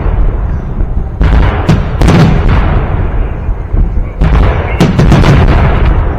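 Victory Day fireworks salute: loud booms of shells bursting, several in quick succession about a second in, at two seconds and again around four to five seconds in, over a continuous low rumble of echo.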